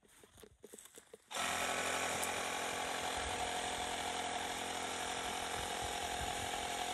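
Portable tire-inflator air compressor switching on about a second in and running steadily, pumping air into a punctured UTV tire. A few faint clicks come just before it starts.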